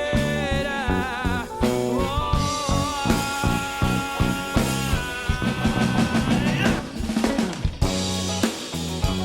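Band music: a song with a drum kit keeping a steady beat under held keyboard or guitar tones, with a sung note wavering in the first second or so and then an instrumental stretch.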